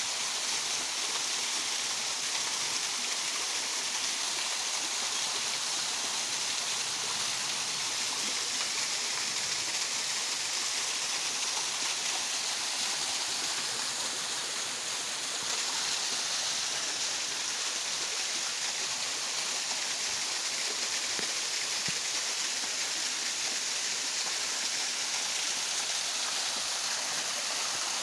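Small waterfall: water falling and splashing in a steady rush.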